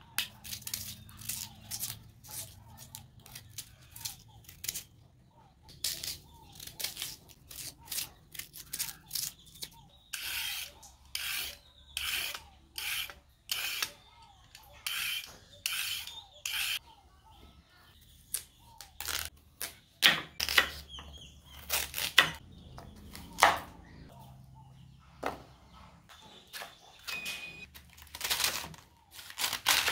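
Vegetables being peeled and cut on a wooden cutting board: a knife scraping the bark-like skin off cassava, then a vegetable peeler stripping a carrot in quick even strokes, about one a second. Near the end a knife cuts through a cabbage, with a few sharp knocks of the blade on the board.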